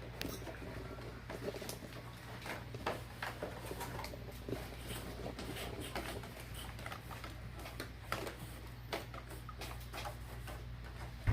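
Irregular light clicks, taps and rustles of objects being handled, over a steady low hum.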